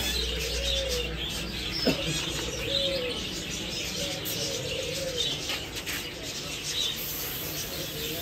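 Doves cooing in short rising-and-falling phrases about every two seconds, with small cage birds chirping high over them. Near the end, a hiss of dry seed pouring from a bucket into a plastic tub.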